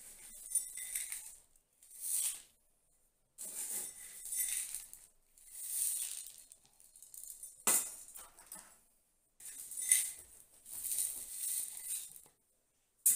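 Granular bonsai soil poured from a plastic scoop into a plastic nursery pot: a series of gritty, rattling pours, about six in all. There are two sharp clicks, one past the middle and one at the end.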